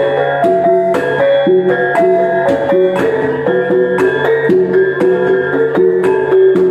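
Iban brass gong ensemble playing taboh: small tuned gongs strike a ringing melody over a steady beat of about two strikes a second, with a low gong tone sustained beneath.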